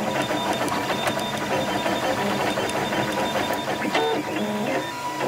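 Flashforge Dreamer 3D printer at work: its stepper motors whine in short tones that keep changing pitch as the print head moves, over a steady hum.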